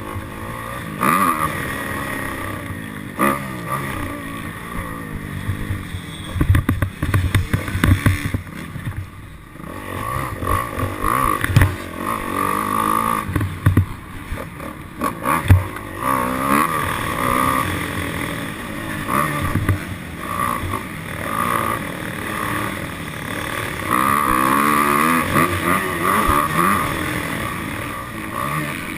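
Dirt bike engine revving up and falling back again and again, with occasional thumps.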